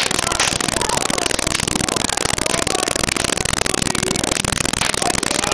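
A burning trolleybus at close range: a loud, steady rush of fire with constant fine crackling, heavily distorted on a poor recording.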